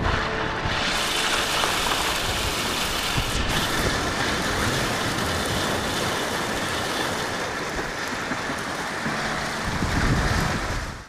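Bike tyres rolling and splashing through shallow lake surf as waves wash up the shore: a steady rushing, spattering hiss that cuts off suddenly at the end.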